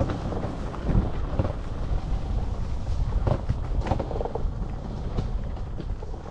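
Wind rumbling on the microphone, with knocks and rattles from a Vector Vortex electric bike riding over rough ground; a cluster of sharper knocks comes a little past the middle.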